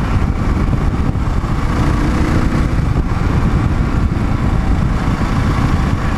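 Wind rushing over a helmet-mounted microphone at road speed, with a Kawasaki KLR650's single-cylinder engine running steadily underneath.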